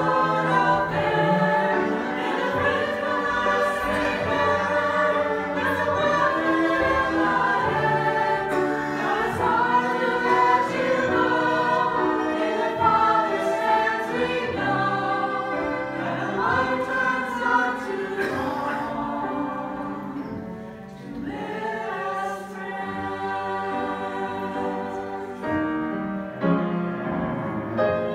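A small mixed group of men's and women's voices singing in harmony, with a bowed cello accompanying. The music softens briefly about two-thirds of the way through.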